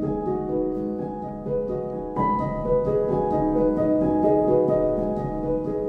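Instrumental background music with held, gently plucked notes; a higher line of notes comes in about two seconds in.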